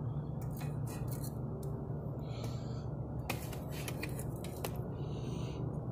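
Chicken drumsticks being set on metal grill grates: a few light clicks and two short scrapes, about two and five seconds in, over a steady low hum.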